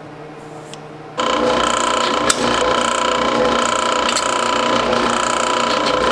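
Drill press running and drilling holes through small metal bracket plates: a steady machine whine with scattered clicks from the bit cutting. It comes in suddenly about a second in, over a quieter steady hum.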